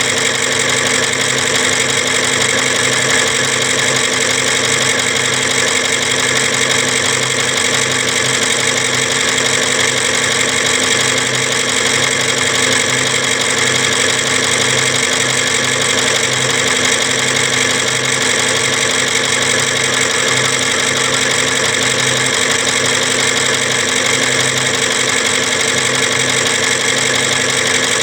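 Heavy machinery running steadily, with a constant hum and a low, even throb that does not change.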